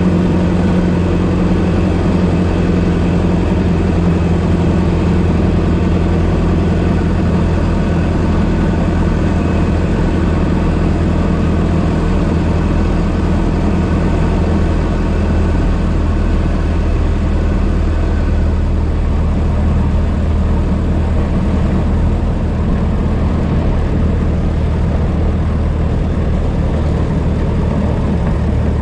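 1926 Ford Model T's four-cylinder engine running as the car is driven, a steady engine note that wavers briefly around the middle before settling again.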